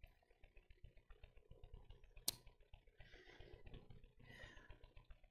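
Faint handling sounds at a lectern: pages being turned, two short rustles in the second half, with one sharp click a little over two seconds in.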